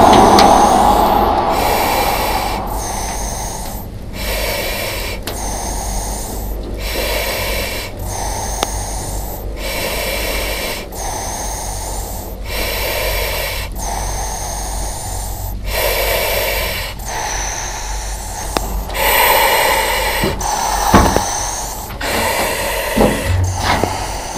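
A firefighter breathing steadily through a self-contained breathing apparatus (SCBA) mask. Each inhale and exhale is a hissing rush about a second long, with a high whistle in it, and a full breath comes about every two and a half seconds.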